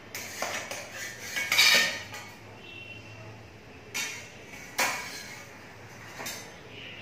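Stainless steel cookware clanking and scraping as a perforated steel colander, used as a lid, is lifted off a kadai steaming a covered tiffin box. There are several sharp metal clanks, the loudest just under two seconds in, and a few more near the end.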